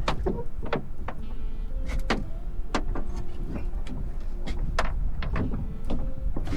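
Irregular knocks and slaps of a trout flapping in a rubber-mesh landing net while its hook is worked out, a dozen or so sharp strikes over a steady low rumble.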